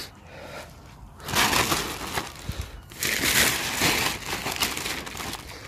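Large plastic tarp rustling and crinkling as it is handled and pulled over the shelter's pole frame, in two loud spells about a second in and about three seconds in, then softer rustling.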